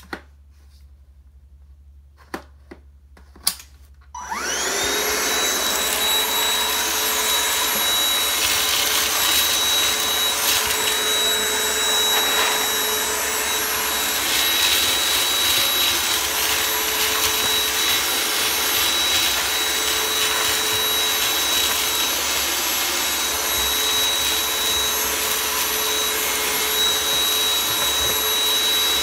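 A few sharp clicks, then about four seconds in a vacuum cleaner switches on, its motor spinning up to a steady high whine that runs on with scattered crackles of debris being sucked up.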